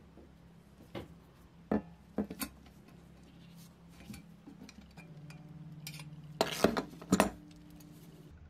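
Small hard objects clinking and knocking as they are handled: a few sharp clinks in the first few seconds, then a louder cluster of clinks later on, over a faint low hum.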